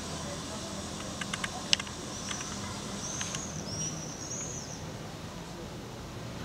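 Outdoor ambience over a steady low hum: a few sharp clicks a little over a second in, then small birds chirping in short, high, arching calls for about two and a half seconds.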